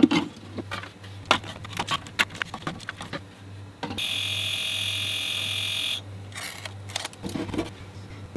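Sharp plastic clicks and snaps from a breaker box cover and breakers being handled. About four seconds in, a DYMO LetraTag handheld label maker prints a label with a steady buzzing whir lasting about two seconds, followed by softer handling clicks.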